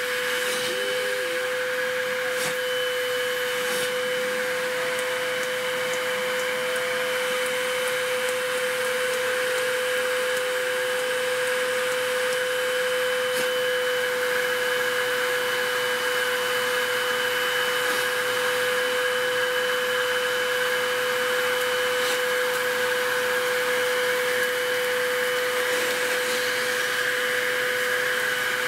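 A vacuum cleaner motor running steadily with a constant whine, pulling air through the drilled holes of a vacuum bed.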